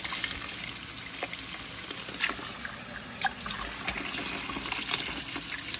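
Tap water running into a stainless steel bowl and splashing over prickly pear fruits as they are rinsed, with a few faint clicks.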